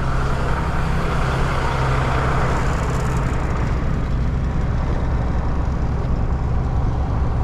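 Truck driving slowly in four-wheel drive on an icy road: a steady low engine hum with road noise, holding an even level.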